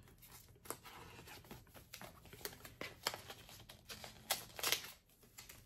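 Plastic wrapper of a charm pack of precut fabric squares crinkling and tearing as it is opened by hand: faint scattered crackles, a few sharper ones about three and four and a half seconds in.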